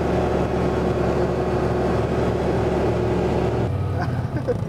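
Side-by-side UTV engine running steadily while being driven along the road. About three and a half seconds in it cuts to a quieter, lower engine note as the vehicle pulls up slowly.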